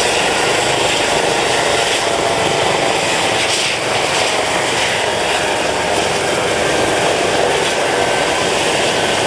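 Eurocopter EC135 T2 helicopter running on the ground, its twin turboshaft engines and turning main rotor making a steady, loud mix of turbine whine and rotor noise.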